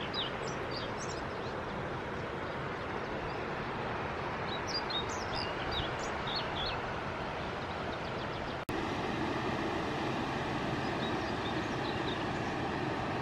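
Steady rush of water spilling through the pond's dam, with small birds chirping over it in the first half. The noise breaks off abruptly about two-thirds in and resumes slightly louder.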